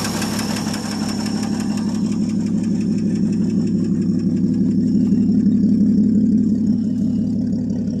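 1959 Ford F250's inline six-cylinder engine idling steadily, an even pulsing run. It is the truck's first start in three to four years, running on gas poured into the carburetor.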